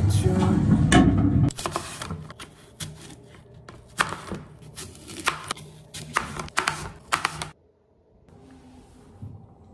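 Background music for the first second and a half, then a knife cutting a green apple on a plastic cutting board: a run of irregular sharp knocks of the blade against the board for about six seconds, stopping suddenly.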